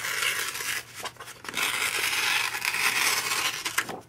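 A sheet of cardstock torn by hand, the tear pulled towards the tearer to leave a rough edge. Two long rips, the second starting about one and a half seconds in and lasting over two seconds.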